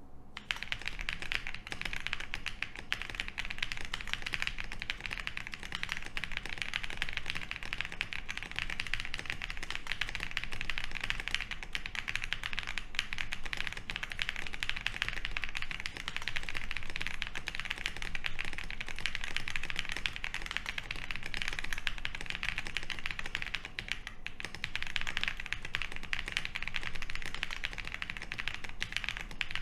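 Continuous typing on an OwLabs Jelly Epoch gasket-mount mechanical keyboard with lubed Boba U4T tactile switches (68 g), a polycarbonate plate and PBT keycaps: a dense, unbroken stream of key clacks.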